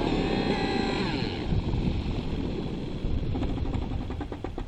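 Two-stroke glow engine (O.S. MAX-55HZ-R with an MS55-3D ZERO.SP muffler) of a nitro RC helicopter winding down after landing, its pitch falling steeply in the first second or so. Near the end it breaks into a run of slowing pulses as engine and rotor spin down.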